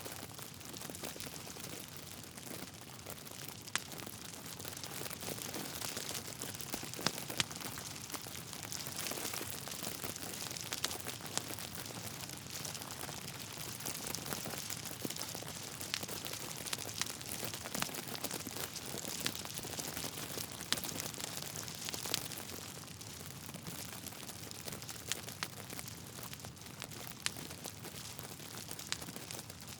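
Wood fire crackling in a fireplace: a steady hiss with irregular sharp pops and snaps scattered throughout, a few standing out louder than the rest.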